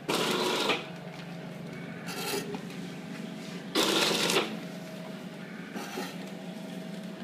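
Automatic granule packing machine running with a steady hum. It makes a loud noisy burst lasting under a second at the start and again about three and a half seconds later, once per bagging cycle, with fainter bursts in between.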